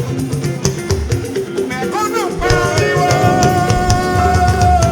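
Yoruba church praise music: a singer holds one long note over a steady beat of drums and shakers.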